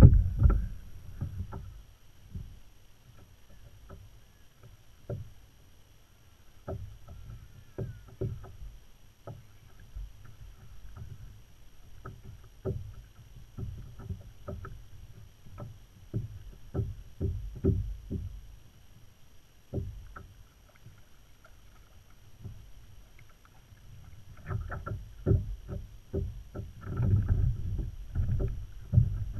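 Irregular knocks and clicks of gear being handled on a plastic kayak, over a low rumble. A loud knock comes at the very start, and the rumble and knocks grow louder near the end.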